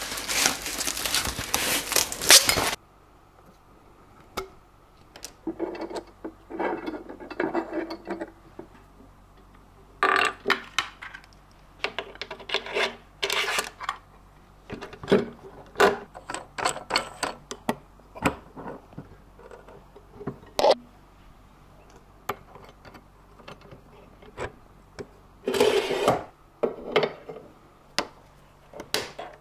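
Aluminium fence parts and metal fittings handled and fitted on a drill-press table: scattered clicks, clinks, knocks and scraping, in short bursts with quiet gaps between them. A couple of seconds of dense rustling noise open the sequence.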